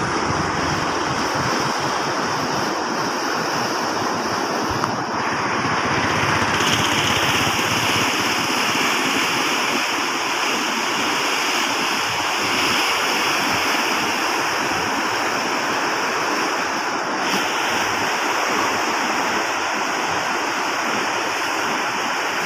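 Fast, turbulent muddy floodwater rushing and churning through the piers of a railway bridge: a steady, loud, even wash of water noise.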